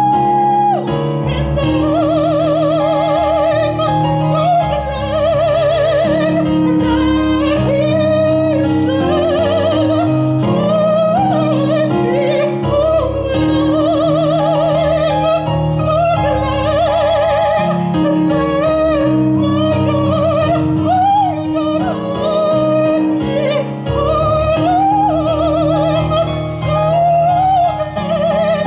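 Female classical singer singing an operatic melody with a strong vibrato, accompanied by sustained chords on an electronic keyboard.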